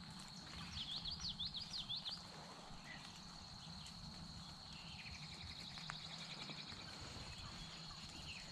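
Songbirds singing: a quick run of high notes sweeping up and down about a second in, then a fast trill of rapid repeated notes past the middle, over a steady faint high-pitched tone.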